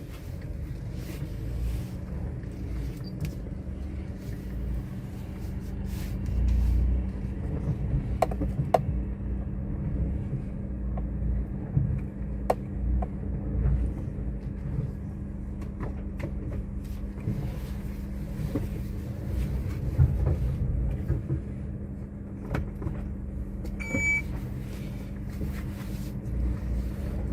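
Car heard from inside the cabin: a steady low rumble with a constant hum, scattered small knocks and rattles, and one short high beep near the end.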